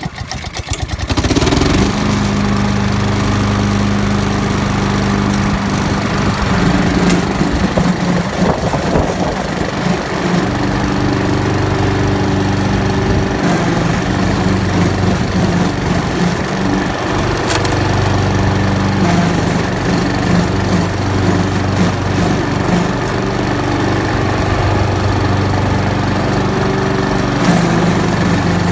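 Honda HRX self-propelled mower's single-cylinder engine coming up to speed in the first second or so and then running steadily, with the pitch of its hum shifting now and then. Among it is the groaning of the mower's hydrostatic drive, the fault being shown.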